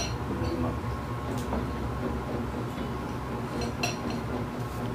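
Light clinks of a glass bowl as fish are handled in it, with a clearer ringing clink near the end, over a steady low hum.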